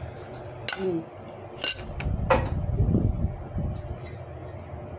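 Plates and kitchen utensils clinking as dishes are handled: three sharp clinks in the first half, with a low rumble of movement around the middle.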